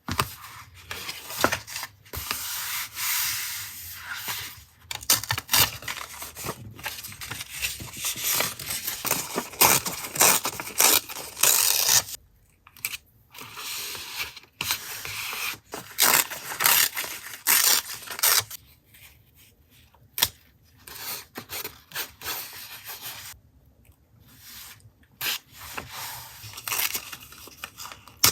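Paper and stickers being handled for collage journaling: rustling, rubbing and tearing in irregular bursts with short pauses, quieter in the last third.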